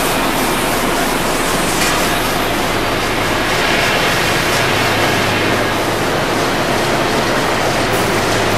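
Heavy rain pouring down, a steady hiss with no let-up.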